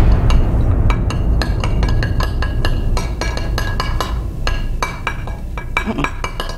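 Forks tapping and clinking again and again against a ceramic plate while poking for peeled boiled eggs, with a short ring after each tap. Under the taps, a deep low sound comes in suddenly at the start and keeps going.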